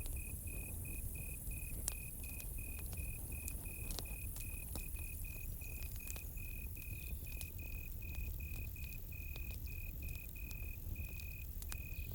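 Crickets chirping steadily in a fast, even rhythm of about three to four chirps a second, over the scattered sharp pops and crackles of a campfire and a low rumble.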